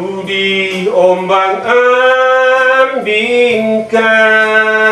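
Male voice singing a slow Indonesian ballad, holding long notes that slide between pitches, over electronic keyboard accompaniment.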